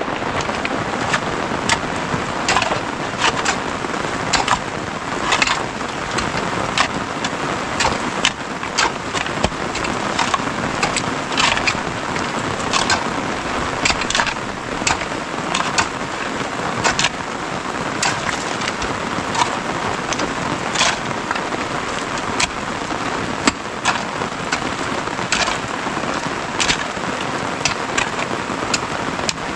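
Steady rain falling, with sharp, irregular drop ticks throughout.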